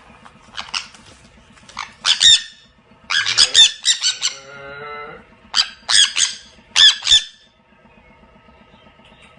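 Parrot squawking: a series of short, harsh, high-pitched calls in clusters, with a lower, wavering call about four to five seconds in.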